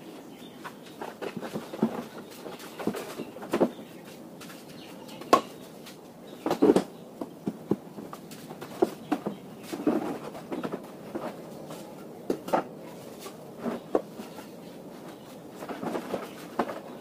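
Irregular knocks, taps and rustles from hand work: a plastic chick-guard sheet being set up in a ring, with bricks handled around it. A few louder knocks come around five to seven seconds in.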